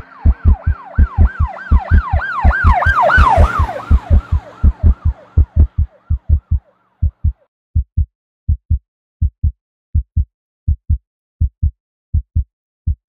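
Heartbeat sound effect, a steady lub-dub double thump roughly every three quarters of a second. Over it an emergency-vehicle siren sounds in quick up-and-down sweeps, swelling to its loudest about three seconds in and fading away by about six seconds.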